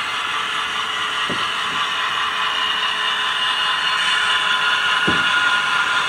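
HO scale model diesel locomotive running along the layout track: a steady mechanical whirring hum that grows slightly louder as the train approaches.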